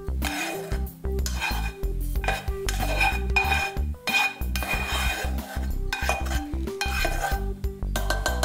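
A spatula scraping fried minced meat and chopped gherkins out of a frying pan into a stainless steel pot, with repeated scrapes and knocks of utensil and pan against the pot. Background music with a steady beat plays under it.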